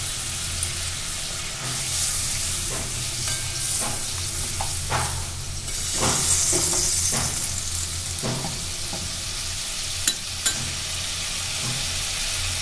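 Thin spiced curry gravy coming to a boil in a metal kadai: a steady sizzling hiss with scattered small pops of bubbles. Two sharp clicks about ten seconds in.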